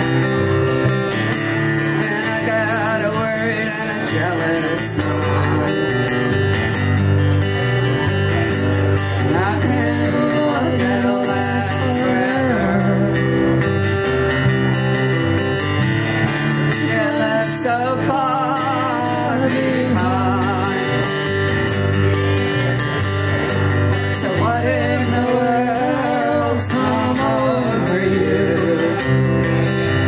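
Live country-folk song played on amplified acoustic guitar and bass guitar, with singing over a walking bass line.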